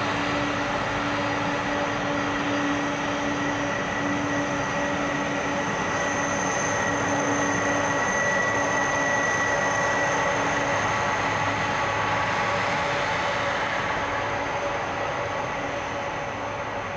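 Boeing 747-400's four Pratt & Whitney PW4056 turbofans running at low taxi thrust as the jet rolls past and turns onto the runway: a steady rush with a high whine, easing off slightly near the end as it swings away.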